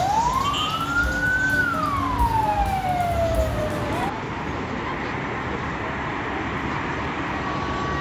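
A siren wailing: one slow rise and fall in pitch, cut off about four seconds in just as it starts to climb again. Steady road traffic noise follows.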